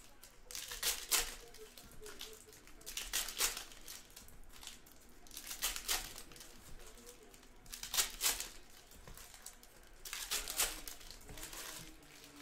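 Plastic-foil trading card pack wrappers crinkling and tearing as packs are opened and handled, in five short bursts about two and a half seconds apart.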